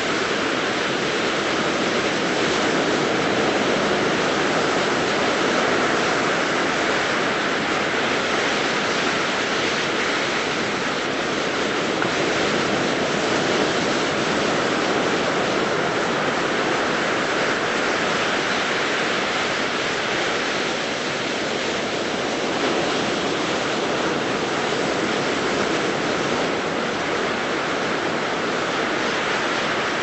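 Ocean surf breaking and washing up a beach: a steady, continuous rush of waves.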